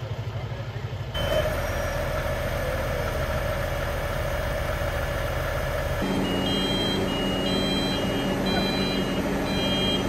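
Heavy diesel work trucks idling with a low, pulsing engine sound that gets louder about a second in. After about six seconds a steady engine hum continues under a repeating high-pitched beeping warning alarm.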